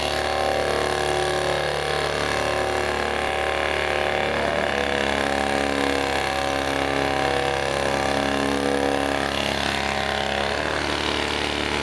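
Motor of an Airnesco barrel cleaning system running steadily as its cleaning rod is worked through the 70mm rocket launcher's tubes. Its pitch shifts about four and a half seconds in and again near the end.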